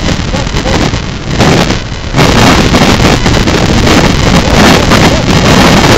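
Strong wind buffeting the microphone of an onboard camera on a sailboat under way, a loud, steady rush that grows louder about two seconds in.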